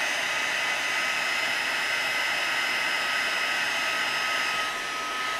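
Electric embossing heat tool blowing steadily, a fan hiss with a thin steady whine, melting white embossing powder on cardstock. The hiss softens slightly near the end.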